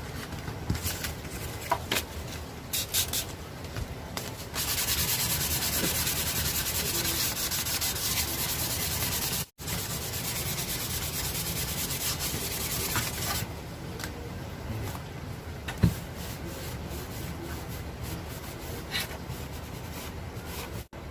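Sandpaper rubbed rapidly back and forth over body filler on a plastic motorcycle fairing, levelling and smoothing the repair. The rasping is loudest through the middle, with a brief break a little before halfway and a few light knocks.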